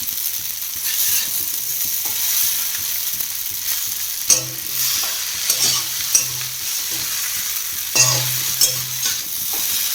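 Chowmein noodles with vegetables sizzling in a frying pan as they are stirred and tossed, with a few sharp scrapes of the utensil against the pan in the second half.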